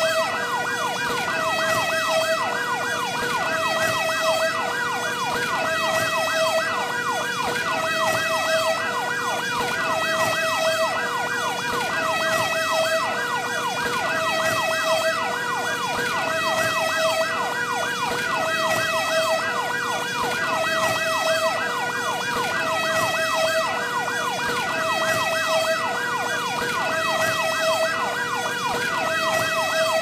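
Fire truck sirens sounding together and without pause: a two-tone siren switching back and forth between a high note and a low note, with a yelp siren sweeping rapidly up and down, several times a second, over it.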